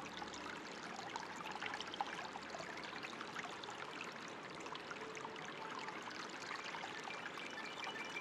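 Water trickling and splashing steadily, a dense patter like a small stream or a spring spilling into a pool. A few faint soft musical tones come in near the end.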